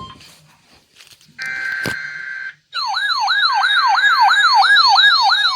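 Emergency alert broadcast tones: a brief buzzy data burst of an alert header, then a siren-like alert tone sweeping up and down about four times a second.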